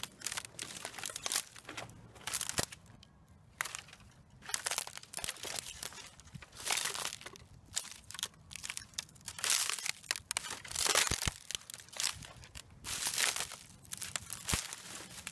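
Boots crunching through dry, fallen canes and their dead leaves, which the walker takes for bamboo: irregular crackling footsteps, one crunch after another, with a short pause a few seconds in.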